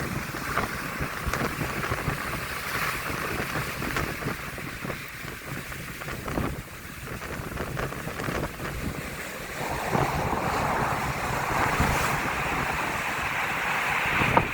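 Storm waves breaking and rushing on the shore at high tide, with strong wind buffeting the microphone. A bigger wave surge swells up about two-thirds of the way through and stays loud.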